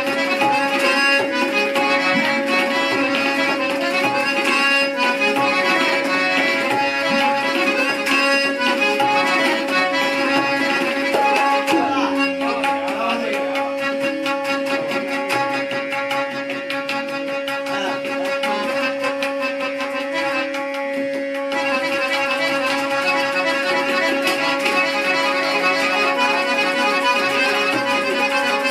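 Tabla played in fast, dense strokes over a harmonium melody with a held drone note. About 12 seconds in, the bass drum's pitch glides down. The strokes thin out for several seconds in the middle, then turn fast and dense again from about 21 seconds.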